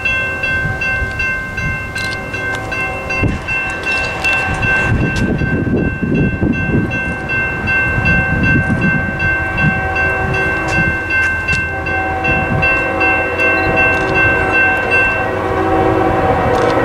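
Railroad crossing's NEG electronic bell ringing in steady, even strokes as the crossing activates and its gates lower, stopping about a second before the end. Over the last few seconds an approaching CSX freight locomotive's horn sounds, growing louder.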